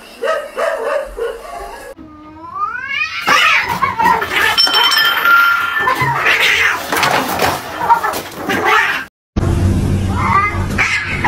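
Cats caterwauling as they square off to fight: long, loud yowls that glide up and down in pitch, building into a dense stretch of screeching through the middle. The sound cuts off abruptly a little after the middle, then comes back with a steady low hum under another rising yowl near the end.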